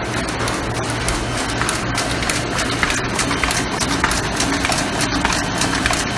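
Heidelberg GTO 52 four-colour sheet-fed offset press running, a steady mechanical clatter of many rapid clicks over a low hum.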